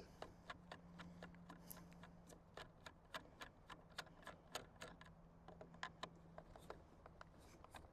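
Faint, irregular small clicks and ticks of screws being taken out of the top of an e-bike battery case, over a faint steady low hum.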